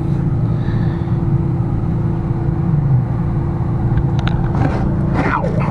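A steady low mechanical drone with a constant hum runs underneath. About four seconds in, a few light clicks and scrapes are heard as a hand works blind inside the wall cavity at a plastic wire clip.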